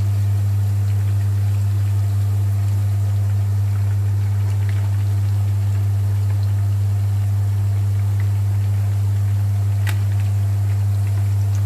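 Meatballs sizzling as they deep-fry in hot seed oil in a frying pan, with a few light clicks, all under a loud steady low hum.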